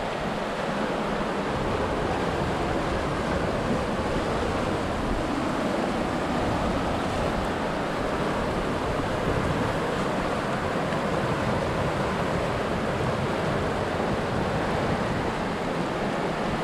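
Steady rush of a fast mountain river running over rocks and through riffles.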